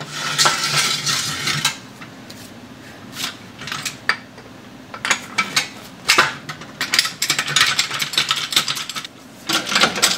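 Steel jack stand being set under a car: metal clanking and rattling, then runs of quick ratcheting clicks as the stand is adjusted.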